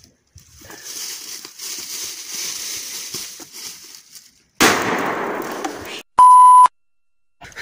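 A shotgun firing a load of buckshot, one sudden loud blast about four and a half seconds in that rings out for over a second and is cut off abruptly. It follows a few seconds of steady hiss and is followed by a half-second electronic beep at a steady pitch.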